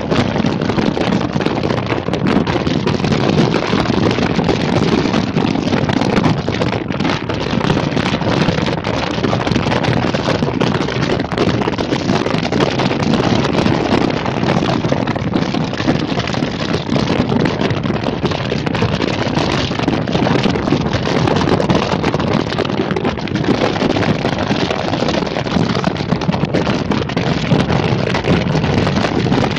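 Steady wind rushing over the microphone, mixed with the running noise of a vehicle underway.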